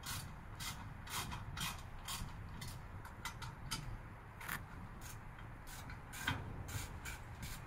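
A hand tool tightening a fastener on a dirt bike's skid plate mounting: a run of short, irregular clicks and creaks, two or three a second.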